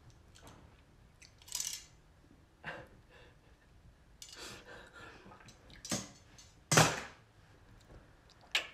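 Metal kitchen tongs clicking and clacking in a handful of short, separate knocks, the loudest about seven seconds in.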